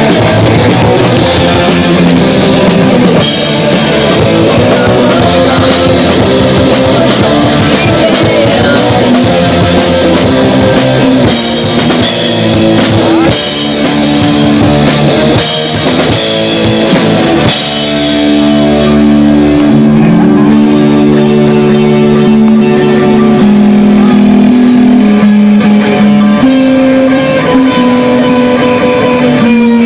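Live rock band playing loud: electric guitars, bass guitar and drum kit. About two-thirds of the way through, the steady drumming drops away and the guitars ring out in long held notes.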